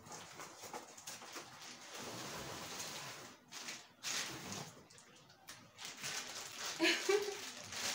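Cardboard carton and plastic wrapping rustling and scraping as a plastic-wrapped tripod is slid up out of its box. A brief vocal sound comes near the end.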